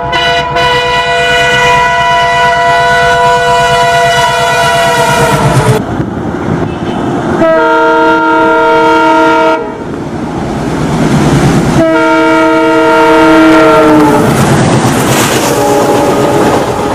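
Indian Railways express train passing at speed: the electric locomotive's air horn sounds three long blasts, the first and last sagging in pitch as they end, over the rumble and rhythmic clickety-clack of the coaches going by.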